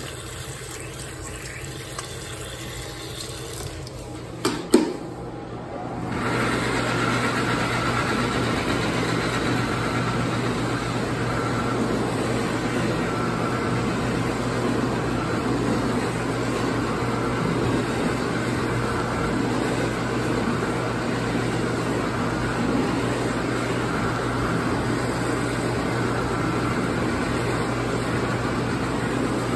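Faucet water running into a sink, a few knocks about five seconds in, then a Superclar Products 'Hands On' push-button electric hand dryer starting up and running steadily, its motor humming under the blowing air.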